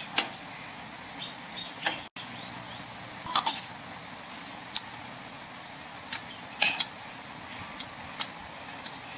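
Irregular short taps and clinks of a screwdriver and small hands knocking against a bicycle crankset and chainring, a dozen or so in all, over a steady background hiss.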